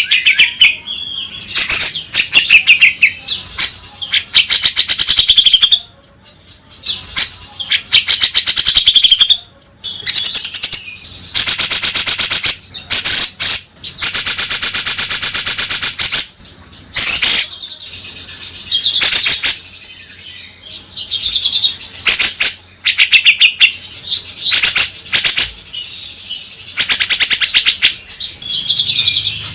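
Grey-cheeked bulbul (cucak jenggot) calling loudly in repeated bouts of rapid, harsh chattering, broken by short whistled chirps.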